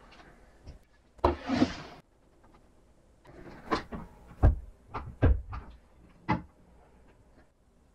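A plywood enclosure being handled: a scraping bump a little over a second in, then a string of sharp wooden knocks and clunks as its hinged front door is worked open and let down.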